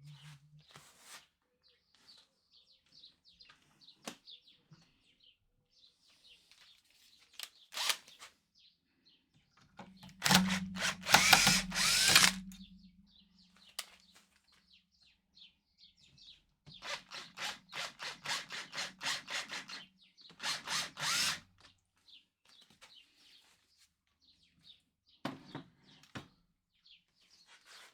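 Electric power tool run in a few short bursts: one of about two and a half seconds, then a stretch of rapid, even pulses lasting about four seconds, then a brief final burst.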